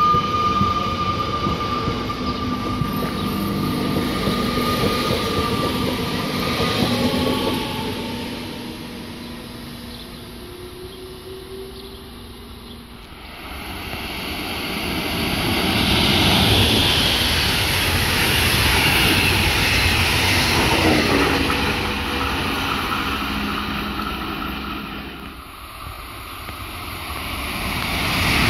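Electric trains passing a station platform one after another. First an electric multiple unit whines steadily as it moves past, its motor tone dropping in pitch about seven seconds in. From about halfway, a locomotive-hauled regional train rumbles past with rolling wheel noise, and an ICE high-speed train is heard approaching near the end.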